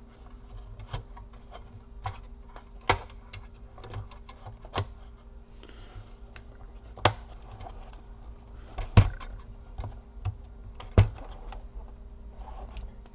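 Irregular small clicks and knocks of laptop parts being handled and fitted back into place during reassembly, a few louder knocks among them, over a faint steady hum.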